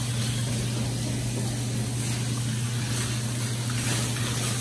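Dog-wash station machinery running: a steady electric motor hum with a constant hiss over it.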